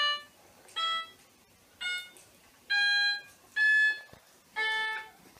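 Electronic toy keyboard played one key at a time: six separate beeping notes at different pitches, about one a second.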